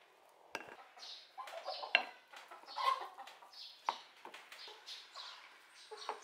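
A wooden spatula stirring rice and egg in a glass bowl, scraping and knocking against the glass, with a few sharp knocks, the loudest about two seconds in.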